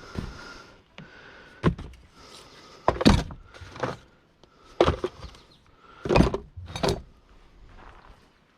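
Scrap being loaded into a car: about six separate clunks and knocks, roughly a second apart, as heavy items such as barrels and batteries are set down.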